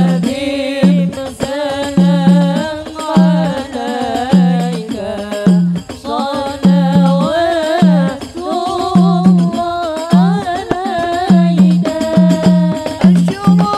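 Women singing an Arabic sholawat, a devotional song praising the Prophet, with a lead voice on a microphone over a steady, repeating drum beat.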